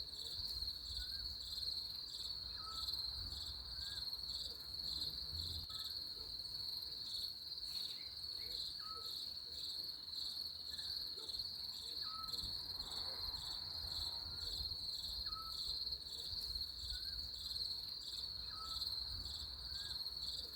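Crickets chirping in a continuous, steady, high pulsing trill, with faint short chirps repeating every second or two beneath it.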